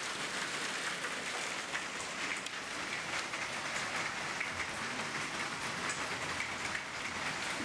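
Hail and heavy rain pelting a terrace floor and a glass door: a dense, steady patter of countless small impacts.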